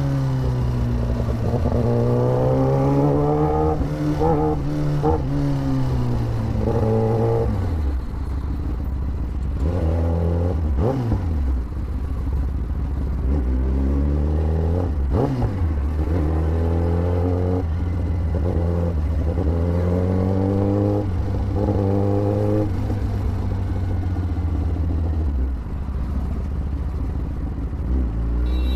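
Motorcycle engine running under way, its pitch rising and falling repeatedly as it accelerates and eases off, over a steady low hum. Twice in the middle a quick falling sweep cuts across it.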